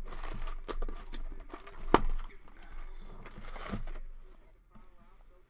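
A Donruss Optic Fast Break basketball card box and its packs being handled and opened by hand: crinkling, rustling and tearing of the packaging, with a sharp snap about two seconds in, settling to quieter handling near the end.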